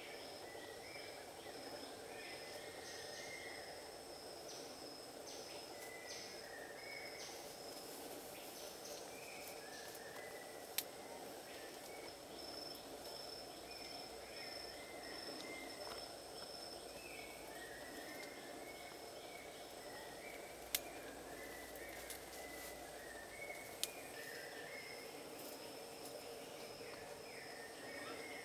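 Outdoor nature ambience: a steady high insect drone under short chirping calls repeated every second or two. Three sharp clicks stand out, about eleven, twenty-one and twenty-four seconds in.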